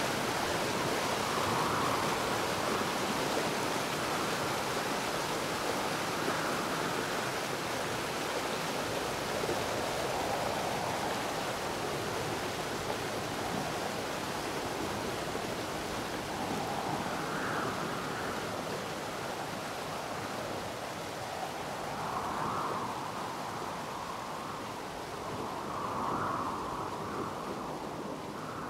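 Steady rushing of the Ganges river flowing fast over rapids.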